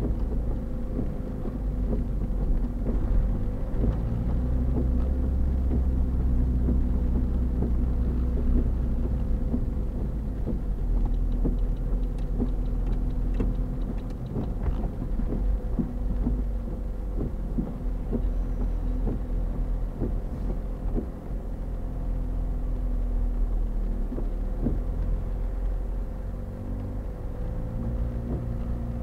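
Motorhome engine running as it drives slowly, heard from inside the cab: a steady low rumble with a constant hum, and scattered short knocks and rattles.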